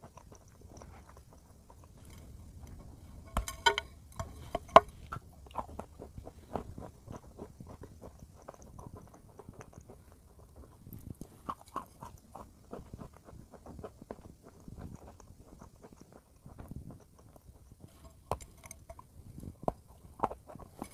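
Close-up eating sounds: a person biting into and chewing dry, crumbly white chalk-like blocks, with sharp crunches about three and a half to five seconds in and again near the end, and softer chewing in between.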